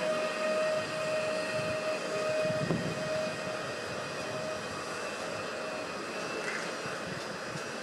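PKP Intercity ED161 (Pesa Dart) electric multiple unit moving away over a steady haze of rolling noise. Its steady whine fades out about halfway through.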